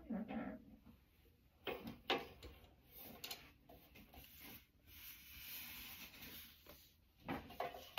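Faint handling noise of stickers and a cardboard box on a wooden desk: a few light knocks in the first half, then a stretch of soft rubbing and sliding, and more knocks near the end.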